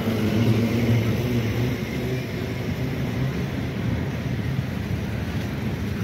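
Passenger train coaches rolling past on the rails, a steady low rumble, with a low hum over the first two seconds or so.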